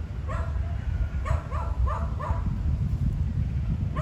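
A dog barking, about six short barks in quick succession, over a loud low rumble of wind buffeting the microphone that cuts off at the end.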